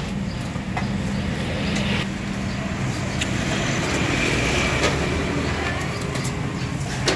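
Steady low drone of a running engine, like nearby idling traffic, with a few light clicks of metal tongs against a steel bowl and trays.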